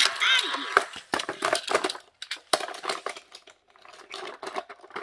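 Sharp, irregular plastic clicks and knocks as a large toy dump truck is handled on a foam play mat, thinning out in the middle and picking up again near the end. A brief high, sliding voice opens it.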